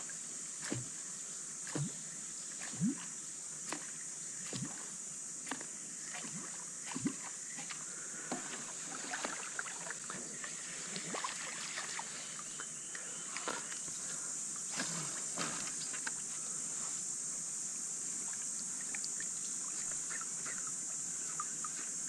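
A steady high insect drone, with scattered light knocks and clicks from a kayak and fishing tackle being handled on the water.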